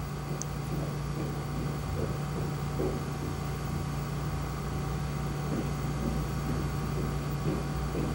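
Steady low background hum of room or equipment noise, with a few faint soft ticks.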